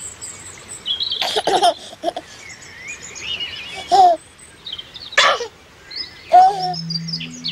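A baby giggling in a few short bursts over chirping birdsong; soft music with held low notes comes in near the end.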